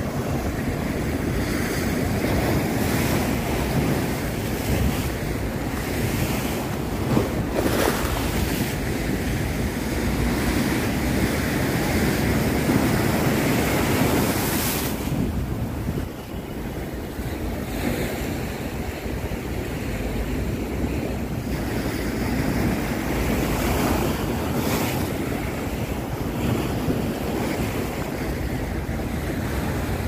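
Sea waves breaking against and washing over stone breakwater blocks: a continuous surf that swells and eases, with wind buffeting the microphone.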